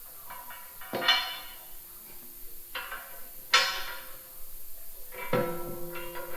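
Background music of slow, spaced struck notes, each ringing out and fading, about five in all.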